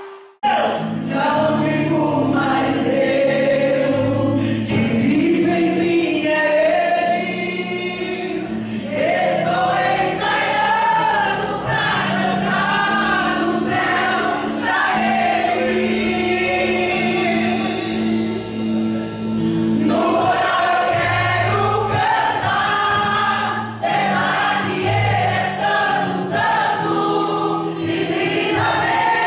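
A gospel vocal group singing live with instrumental backing, a woman's lead voice sung into a handheld microphone over steady sustained bass notes. The music cuts in about half a second in.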